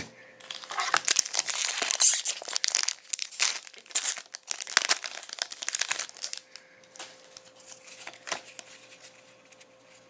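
Foil wrapper of a Pokémon trading-card booster pack crinkling and tearing open, busiest in the first six seconds, then lighter crinkles and clicks as the cards inside are handled.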